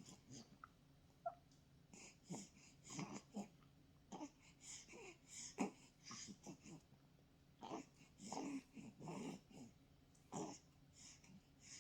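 Four-week-old baby feeding from a bottle: faint, irregular sucking and breathy wheezing noises with small grunts, coming in short clusters.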